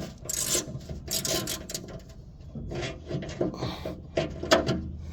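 A small wrench working mounting bolts tight, heard as a series of short scraping, rasping strokes of metal on metal, with a few sharp clicks about four and a half seconds in.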